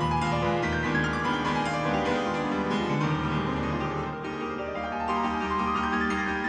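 Background music played on a keyboard instrument, a steady flow of notes, with a rising run of notes in the second half.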